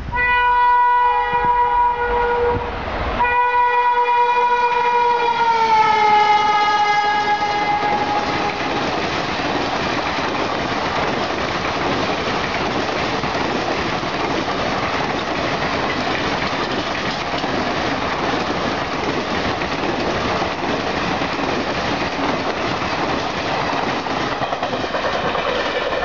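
WAP-4 electric locomotive's horn sounding in two long blasts. The second blast drops in pitch as the locomotive passes at speed. After that comes the steady rushing noise of the express's passenger coaches running past on the track.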